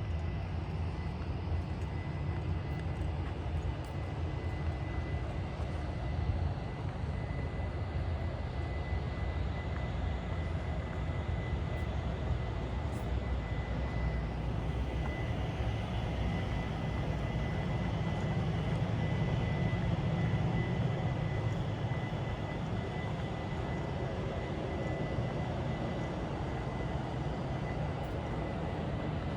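Skate wheels rolling on pavement: a steady low rumble that swells a little past the middle, with a faint thin whine held throughout.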